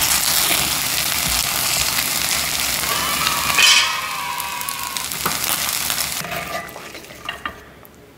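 Fried rice sizzling in a cast-iron skillet as a wooden spoon stirs and scrapes it, with one louder, squeaky scrape a little past the middle. The sizzle fades out near the end.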